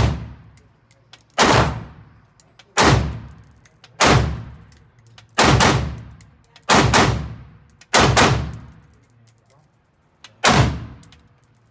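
AR-15 rifle fired eight times in slow semi-automatic fire, one shot about every second and a half, with a longer pause before the last. Each shot trails off over about a second.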